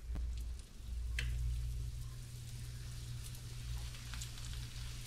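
Flour-coated fish pieces frying in hot oil in a skillet: a faint sizzle with a few scattered pops, over a steady low hum.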